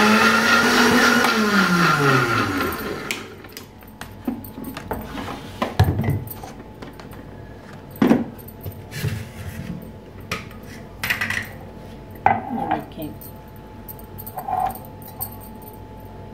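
National juicer-blender's motor blending soaked dates with milk: its whine rises, then winds down and stops about three seconds in. A few clunks and taps follow as the plastic jug is lifted off the base and handled.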